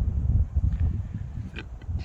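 Wind buffeting the microphone: an uneven, gusting low rumble, with a few faint light clicks about halfway through and near the end.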